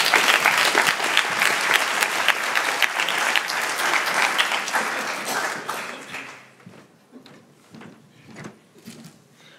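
Audience applause that dies away about six seconds in, leaving a few scattered claps.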